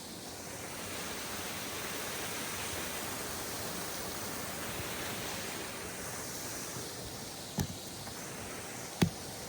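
Waterfall rushing steadily, a continuous even roar of falling water. Two short knocks come through near the end.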